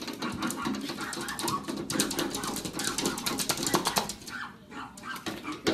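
Small dogs barking and yapping at each other across a metal pet gate, with rapid clicking and rattling throughout.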